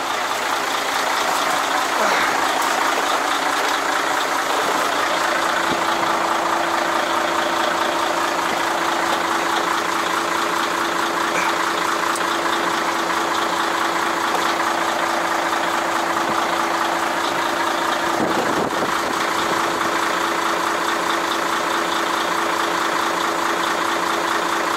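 Steady running noise of a Mercedes-Benz Actros truck's diesel engine idling, with a steady hum joining about five seconds in.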